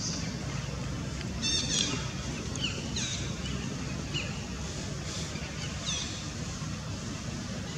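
Short, high-pitched squeaky animal calls, each a quick falling chirp, heard several times (a quick run of them about one and a half seconds in, then single ones), over a steady low rumble.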